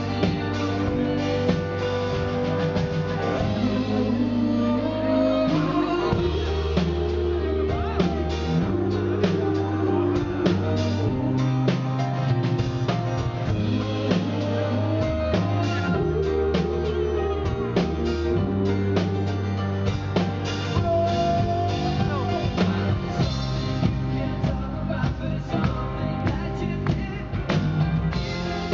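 Pop-rock band playing a song live: a sung vocal line over guitar, a bass holding long low notes, and steady drum hits.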